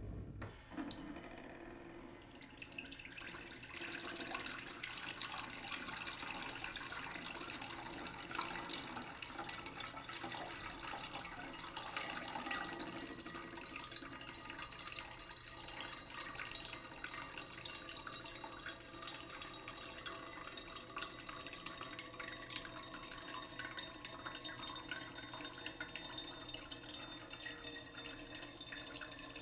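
Tap running slowly into a cooking pot in a sink: a steady trickle and splash of water filling the pot, building up over the first few seconds.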